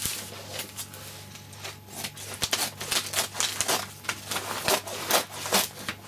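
A sheet of Wonder Web fusible web rustling and crinkling as it is folded and smoothed flat by hand, with irregular crackles throughout.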